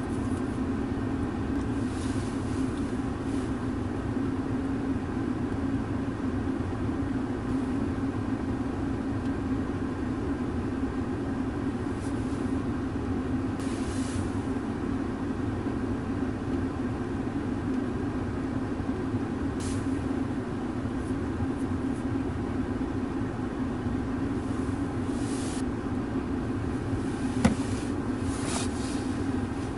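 Steady low hum of a car heard from inside the vehicle, with a few brief hisses and one sharp click near the end.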